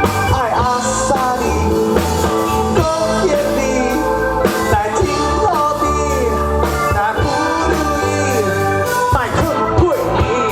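Live rock band playing, with bass, drums and a lead line that bends in pitch; a voice may be singing along.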